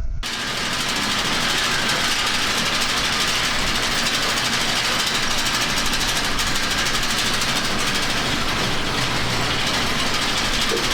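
Steady mechanical running noise of an engine-driven machine, even and unchanging throughout.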